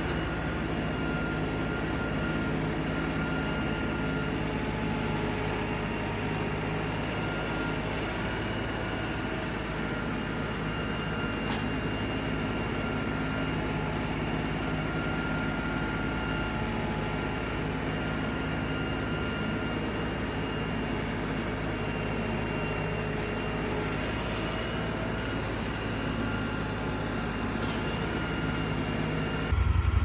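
Diesel engine of an LS compact tractor running at a steady speed while the tractor's backhoe digs out tree roots. Just before the end it cuts to a louder, different engine.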